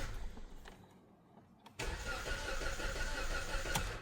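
Hyundai i30's starter motor cranking the engine, which turns over but does not catch: the cranking fades out in the first half second, then after a pause of about a second it starts again and runs until nearly the end. A no-start that the owner puts down to incorrect engine timing, going by a crankshaft position timing code.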